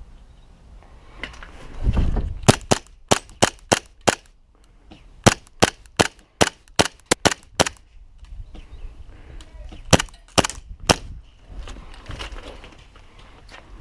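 Airsoft guns firing in three runs of sharp single shots, the middle run at about four shots a second. A low rumble comes just before the first run.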